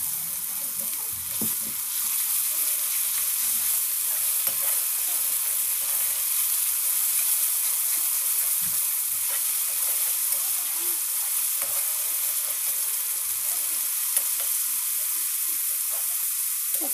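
Ground onion, garlic, ginger and red chilli paste sizzling in hot oil in a metal kadhai, with a perforated steel spatula scraping against the pan as it is stirred; the paste is being fried until the onion turns golden brown. The sizzle grows a little louder about two seconds in.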